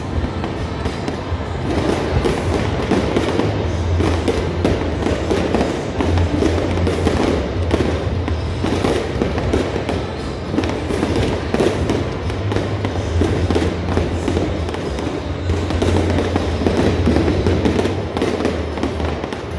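Fireworks crackling and popping in rapid, dense succession over loud music with a steady bass.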